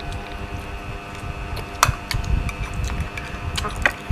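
Metal spoons clinking against china plates as people eat, a few sharp clinks, the loudest about two seconds in and several more near the end, over a steady low background rumble.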